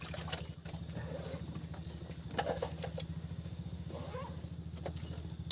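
A steady low motor drone with a fast pulse, with scattered light clicks and taps over it.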